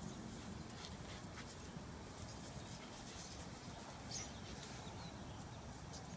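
Faint outdoor ambience: a steady, high-pitched insect chirping repeating evenly throughout, with a few faint clicks.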